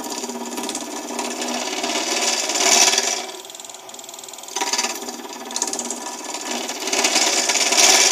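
A lathe spinning a blank while a hand-held turning tool cuts it, throwing off long shavings. There are two cutting passes, each building to a loud scraping peak. About three and a half seconds in, a short lull leaves only the lathe's steady hum.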